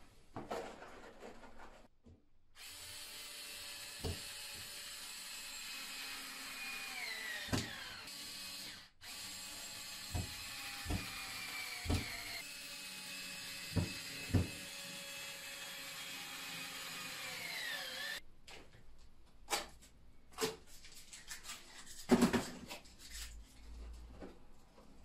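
Cordless drill-driver screwing plasterboard up to the ceiling. Its motor whines for long spells and drops in pitch three times as it slows, with sharp knocks in between. The drill stops about 18 s in, leaving scattered knocks and a cluster of loud thumps about 22 s in as the board is handled.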